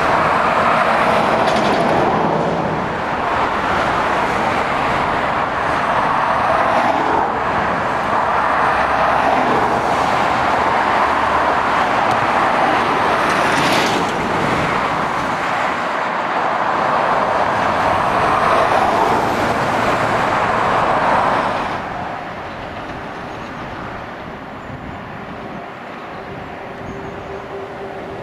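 Motorway traffic passing below: a steady rush of tyre and engine noise from lorries and cars. It drops to a quieter level about three-quarters of the way through.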